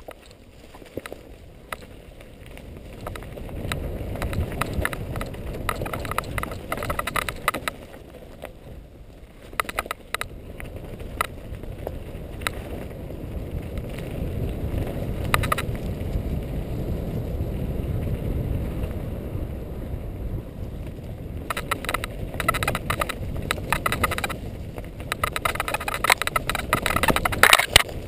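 Mountain bike riding over a rocky, leaf-covered dirt trail: a steady rough rumble from the tyres, with bursts of rattling and clattering as the bike crosses stones, heaviest in the last several seconds.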